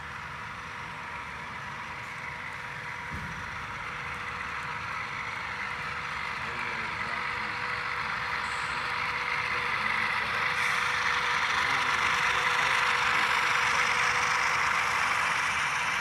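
Sound-equipped HO scale ScaleTrains ES44AC model diesel locomotives playing their diesel engine sound through their onboard speakers, a steady running sound with a hum, growing louder over the first twelve seconds or so.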